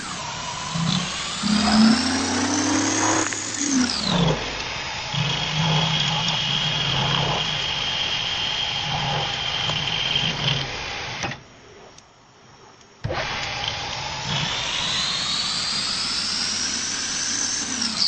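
Lathe motor whining as it speeds up, the pitch climbing for a few seconds, then dropping sharply as it slows. A steady whine follows, then a short quiet gap, then another rise and a sharp drop near the end.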